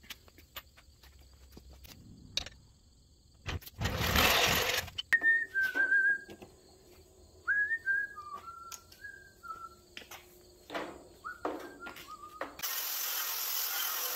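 Someone whistling a short tune of about a dozen quick notes, some sliding up at their start, over scattered clicks and knocks of work on the truck. A loud burst of clatter comes about four seconds in, and a steady hiss starts near the end.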